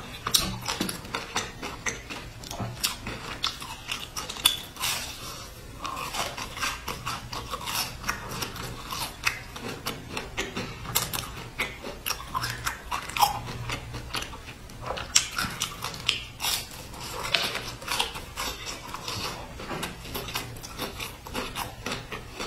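Close-up eating of a round biscuit sandwich with a dark crumbly filling, heard through a clip-on microphone: bites and chewing that make a dense run of short, sharp crunches.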